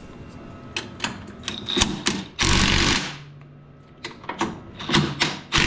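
DeWalt cordless impact driver driving the vise screw of a metal-cutting bandsaw tight. It gives two short bursts of rapid hammering, one about halfway through and one near the end, with light clicks and handling knocks before them.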